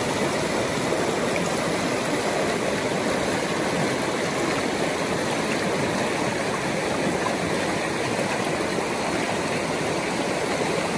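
Shallow river rushing over rocks through a fast riffle, a steady, unbroken rush of water.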